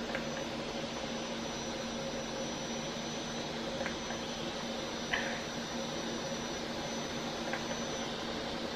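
Handheld at-home laser hair removal device running with a steady fan-like whir and a high whine, with four short clicks as it fires, the loudest about five seconds in.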